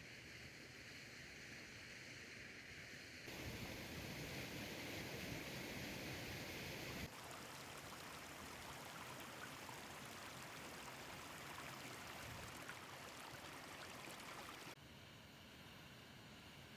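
Steady rush of a small stream or waterfall. It gets louder abruptly about three seconds in, drops back about seven seconds in, and drops again near the end, with sudden changes like cuts between shots.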